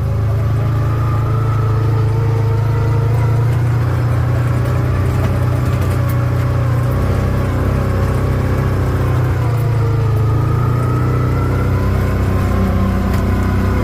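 Motor vehicle engine running steadily while driving, a constant low hum whose pitch shifts slightly about halfway through.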